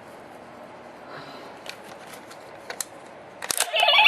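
Small plastic clicks and card handling on a Tensouder toy morpher as a Gosei card is worked into it, then a sharp click about three and a half seconds in and the toy's electronic sound effect starting loudly near the end.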